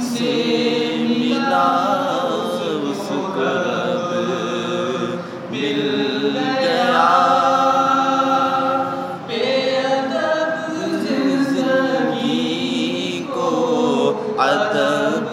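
A man singing an Urdu naat (a devotional poem in praise of the Prophet) into a handheld microphone, in long held notes with wavering, ornamented turns and short pauses for breath.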